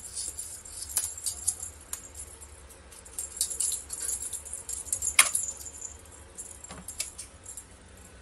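Light jingling and rattling in quick clusters as cats bat at a feather wand toy, with a sharp knock about five seconds in.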